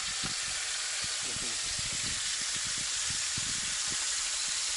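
Crucian carp frying in a pan, a steady sizzle with scattered small pops and crackles.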